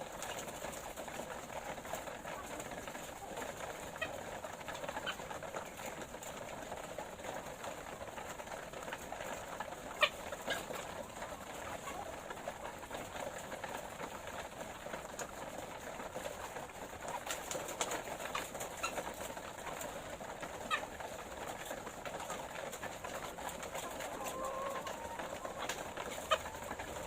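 A flock of laying hens making a steady low murmur of clucks and purring calls, with a few sharp clicks now and then and a short louder call near the end.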